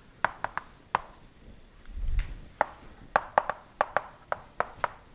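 Chalk tapping on a chalkboard as words are written: a run of sharp, irregular clicks. There is a low thump about two seconds in.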